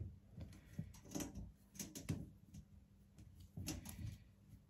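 Faint, scattered clicks and knocks of a steel mesh desk organizer's parts being handled and fitted together: a tray and a thin metal rod tapping against the mesh frame.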